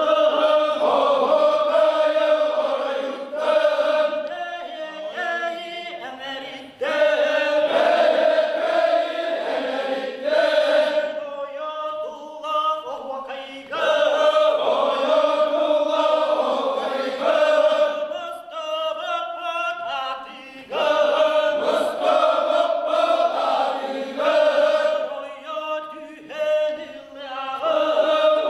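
Men singing an osuokhai, the Yakut circle-dance song, in a group chant: fuller stretches of many voices together alternate with thinner, wavering stretches, the pattern coming round about every seven seconds.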